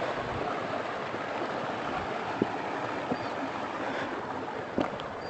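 Steady rush of a stream's flowing water, with a few faint knocks.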